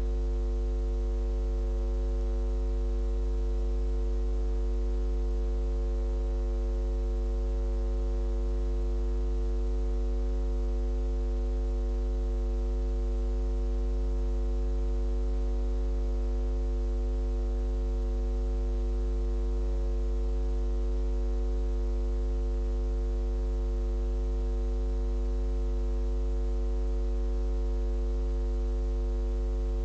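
Steady electrical mains hum: a low drone with a stack of higher overtones, unchanging, with nothing else on the track.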